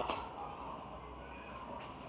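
Quiet room tone, a faint steady low hum and hiss, with one short click at the very start.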